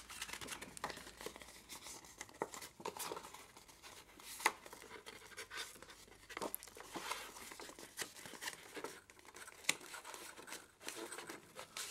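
Printed paper being folded and creased by hand: faint rustling and crinkling with scattered short crackles.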